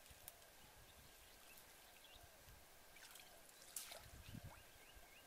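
Near silence: faint outdoor ambience with a thin steady high tone and a few faint chirps, and a soft brief noise about four seconds in as a stick prods the water at a pond's edge.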